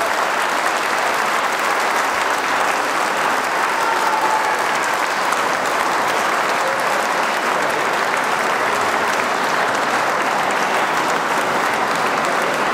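Audience and performers applauding: dense, steady clapping from a full hall.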